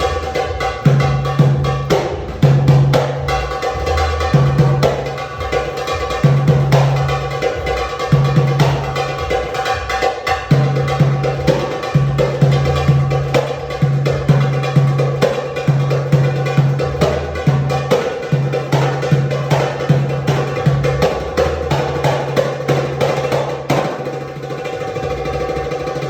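Tabla solo: rapid, dense strokes with the ringing pitch of the drums sustained underneath and low bass strokes recurring throughout.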